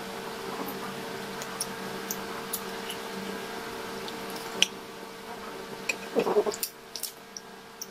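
Quiet eating sounds from peeling shrimp by hand and chewing: scattered small clicks and soft squishes over a faint steady hum, with a short louder sound about six seconds in.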